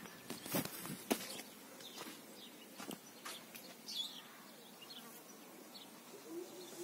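Faint scattered scuffs and knocks of footsteps and handling as someone walks into a wooden-floored site hut, with a brief faint chirp about four seconds in.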